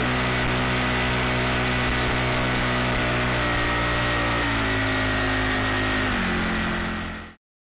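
A Honda 35cc four-stroke engine runs steadily, driving the kayak. Its note drops in pitch about four and a half seconds in and again around six seconds, then the sound fades out near the end.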